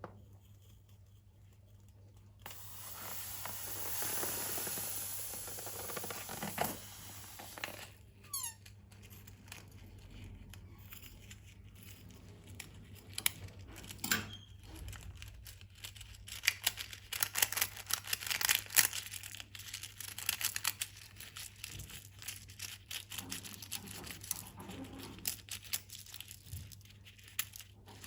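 Slime being squeezed and mixed by hand: a soft hiss for a few seconds, then a long run of small sticky clicks, crackles and squelches that is thickest about two-thirds of the way through.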